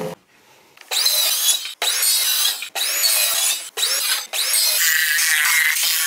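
Hand saw cutting through an OSB board: about four separate scraping strokes roughly a second apart, then continuous faster sawing from about two-thirds of the way in.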